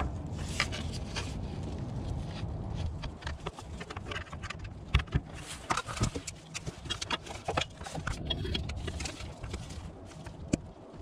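Scattered clicks, knocks and scrapes of a screwdriver prying at the filter cover in the aluminium pump housing of a Haldex Gen 4 coupling, a tight fit held in by its two O-rings. The clicks come thickest in the second half.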